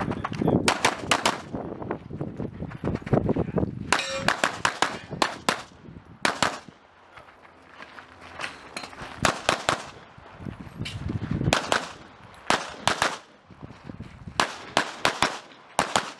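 CZ Shadow 2 9mm competition pistol firing quick pairs and short strings of shots, with brief pauses between strings. About four seconds in, one shot is followed by a short ringing tone.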